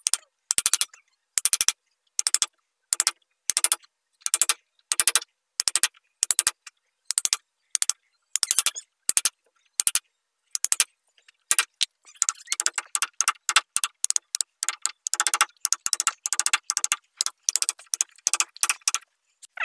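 A steel blade with a wooden handle scrapes and picks crumbled wood-fibre core out of a broken table corner in short, separate strokes. At first they come every half second or so, then from about twelve seconds in they quicken into a rapid run of strokes.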